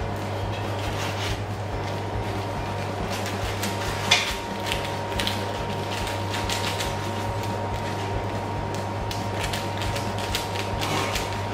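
A knife cutting through a slab of baked brownies with a crisp, flaky top, making scattered small clicks and taps as the blade goes down against the tray, with one sharp knock about four seconds in. A steady low machine hum runs underneath.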